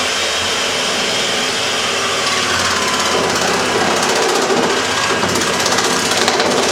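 Electric hand-held food mixer running with dough hooks fitted, a steady motor whine that turns into a fast, dense rattle about three seconds in as the hooks work against a balloon.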